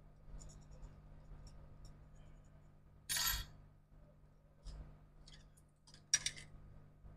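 Small hand tools being handled on a laptop logic board: faint light clicks and scratches, a short hissing scrape about three seconds in, and a sharp click followed by scraping about six seconds in.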